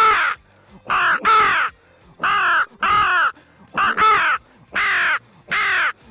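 Nasty Crow mouth-blown crow call imitating a hooded crow: about eight short caws in quick succession, each falling in pitch at its end. It is sounded as an excitement call, with more crow put into each note.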